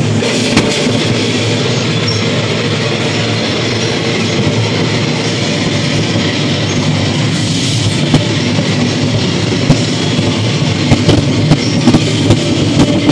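Loud film soundtrack played through the speakers of a motion-simulator cinema: music over a continuous rumble, with a series of sharp clacks growing more frequent near the end.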